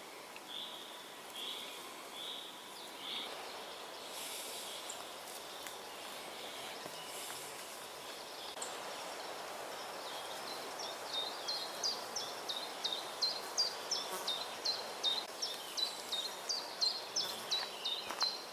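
Forest birdsong: soft high calls about once a second in the first few seconds, then from about ten seconds in a bird repeats a short, high, downward-sweeping note about three times a second, growing louder. Under it runs a steady faint hiss of outdoor ambience.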